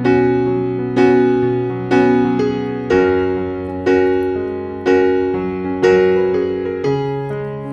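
Background piano music: slow chords struck about once a second, each one fading before the next.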